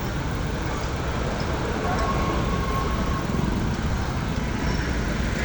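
Nissan AD engine running steadily with a misfire on cylinder 1.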